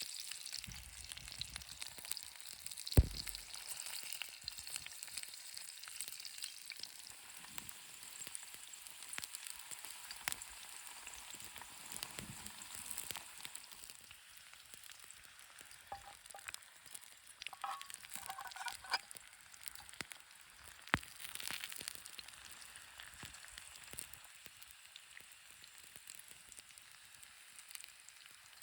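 Food sizzling and crackling in hot oil in a pan over a campfire, the sizzle slowly dying down. A sharp knock about 3 s in and another about 21 s in.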